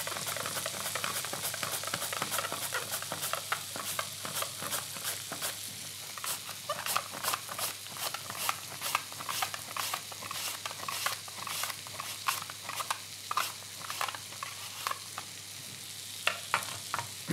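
Skin-on raw potato being sliced on a handheld mandoline: a short, sharp scraping stroke about twice a second as the potato is pushed across the blade.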